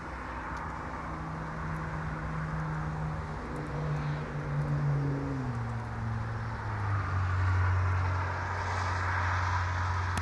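A motor vehicle driving by unseen: a low engine hum that drops in pitch in a few steps, with road noise growing louder toward the end.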